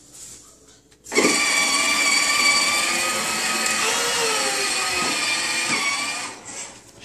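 Battery-powered toddler ride-on quad's electric motor and gearbox whining steadily as it drives. The whine starts about a second in, dips slightly in pitch partway, and stops near the end.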